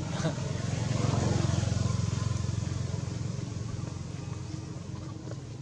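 A vehicle engine running, growing louder about a second in and then slowly fading away as it passes.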